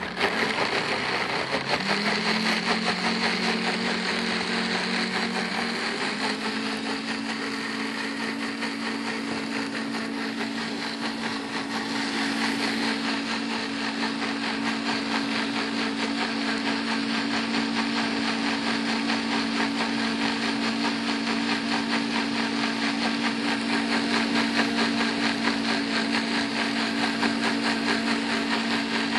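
Bosch Universal countertop blender motor running steadily, puréeing cashews, water and pimentos into a smooth cheese sauce. Its hum steps up in pitch about two seconds in and again about six seconds in, then holds.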